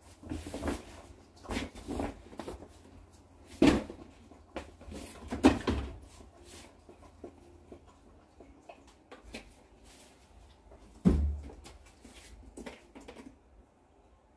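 Scattered knocks and clunks of a front-loading washing machine being loaded, its door and drawer being handled. The loudest clunks come about four, five and a half, and eleven seconds in.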